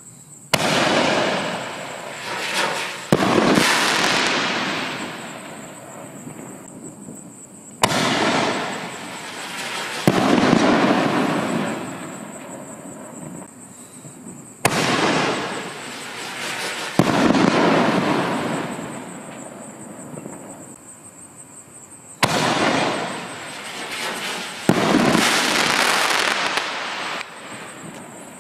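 Four reloadable consumer aerial shells fired one after another from mortar tubes, about seven seconds apart. Each sharp launch report is followed about two and a half seconds later by a second loud bang as the shell breaks overhead, with a long fading tail of sound after each break.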